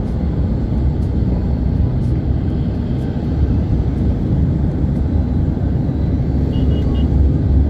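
Steady road and engine rumble heard inside the cabin of a moving car, growing slightly louder toward the end.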